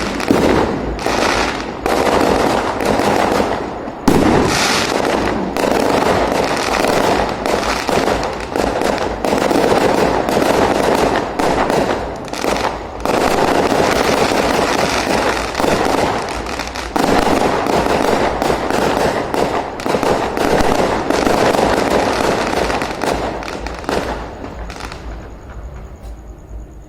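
Fireworks going off in a long, dense barrage of bangs and crackling, many bursts overlapping, thinning out and fading near the end.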